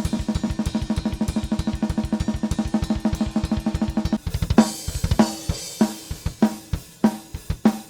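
Playback of a raw, live-recorded metal drum kit with no triggers or samples. Rapid double kick drum runs under snare and cymbals for about four seconds. It then changes to a slower beat with heavy snare hits about every half second and cymbals, and stops just before the end.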